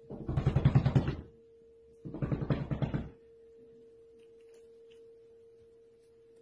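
Rapid drumming knocks against a door, two bursts of about a second each, from a cat's quivering tail beating on it.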